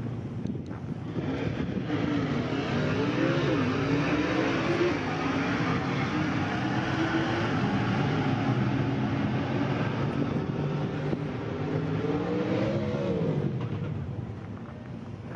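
Car engine running and being revved, its pitch rising and falling several times, louder through the middle and fading near the end.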